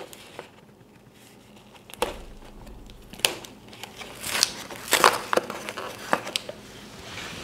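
Paper and cardboard casing of a small spinning firework being picked and peeled apart by hand: light crinkling and crackling, faint at first, with sharper rustles from about two seconds in.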